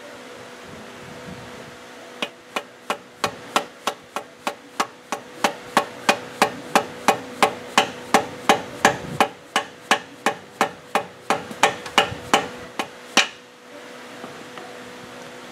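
Plastic mallet tapping a part down onto a shaft inside a lathe headstock gearbox. It gives about three blows a second in a steady run, starting about two seconds in and stopping a couple of seconds before the end.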